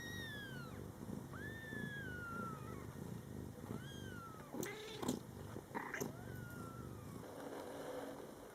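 Young Scottish Fold kittens mewing again and again: about six thin, high-pitched calls, each rising then falling in pitch, over a low steady purr.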